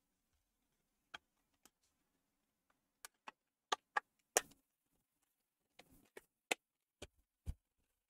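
Scattered sharp plastic clicks and taps from a Sabrent USB 3 hard-drive caddy being pressed shut and handled with a laptop drive inside, a dozen or so irregular clicks with a duller knock near the end.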